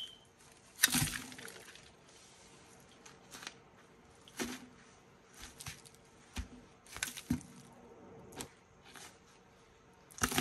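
Asian water monitor biting and shaking a thawed rat: a run of sharp, irregular cracks and crunching knocks, the loudest about a second in.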